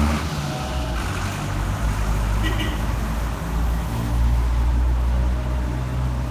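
BMW F 800 GS's 798 cc parallel-twin engine running steadily through its exhaust, its speed wavering slightly.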